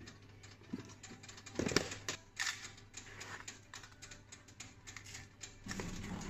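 Small irregular clicks and knocks of a paper takeaway coffee cup and its plastic lid being handled on a counter, with one louder knock about two seconds in.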